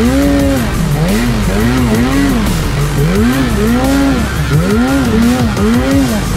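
Snowmobile engine revved up and down again and again, about ten quick throttle blips in a row, as the sled is worked through deep snow.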